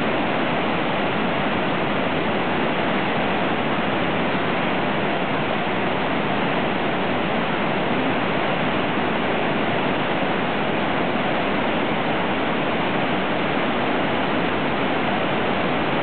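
Iguazu Falls' many cascades pouring into the gorge: a steady, even rush of falling water with no let-up.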